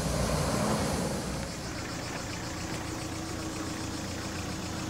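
A vehicle engine idling steadily; the sound drops and settles about a second and a half in.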